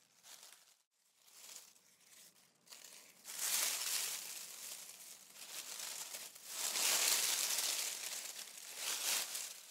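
A crackling, rustling noise with no tune or steady tone, swelling and fading a few times: it is faint at first, grows louder from about three seconds in, and is loudest again around seven seconds.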